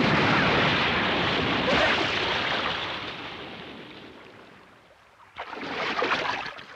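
Animated-film sound effect of rushing sea water: a sudden loud wash that fades away over about five seconds, then a second, shorter rush of water near the end.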